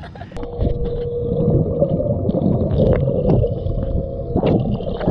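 Muffled underwater sound of a swimming pool heard through a waterproof action-camera housing: a dense low rumble of moving water with a faint steady hum and scattered clicks. It sets in about half a second in, as the camera goes under.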